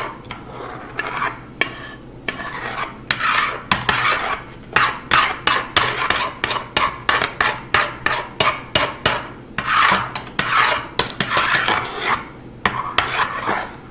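Metal spoons scraping and tapping on a wooden end-grain cutting board as soft ice cream is chopped and smeared across it, in quick repeated strokes about three a second.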